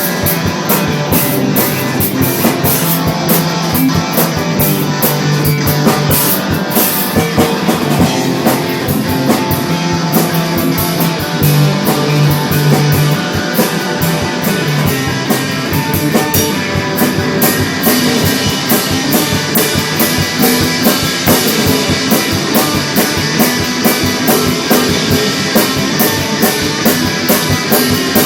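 Rock music with a drum kit and guitar playing a steady beat.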